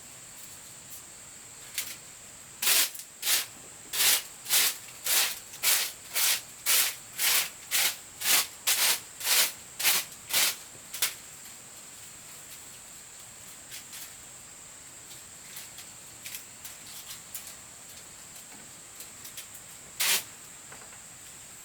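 A run of about sixteen even, rasping strokes, about two a second, with one more stroke near the end. Under them is a steady high-pitched drone of insects.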